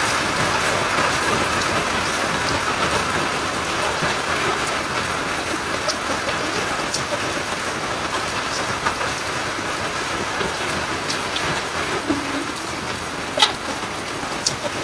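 Steady, dense hiss like heavy rain, with a few sharp clicks in the second half, the loudest about thirteen seconds in.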